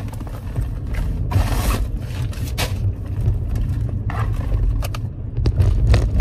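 Hands rummaging through a tote bag, rustling and scraping its contents in a few short bursts, over a steady low car-cabin rumble.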